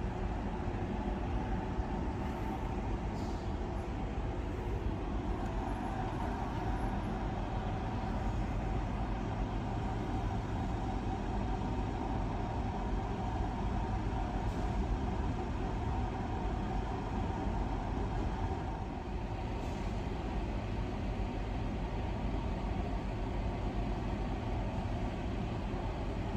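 Steady low rumble of road vehicles idling, queued at a level crossing's red lights.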